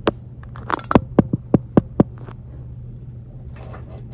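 Secateurs snipping at an orchid's plastic basket pot and root mass: one sharp snap at the start, then about seven quick sharp snaps in a second and a half, over a steady low hum.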